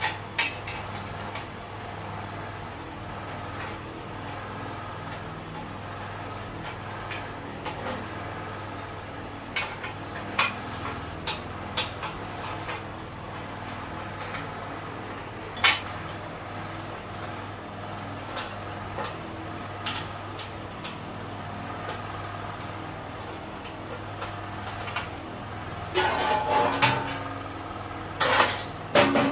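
Metal clinks and taps from the painted steel frame of an industrial sewing machine stand being assembled by hand, with one sharp clink about halfway and a louder clatter of the frame near the end, over a steady low hum.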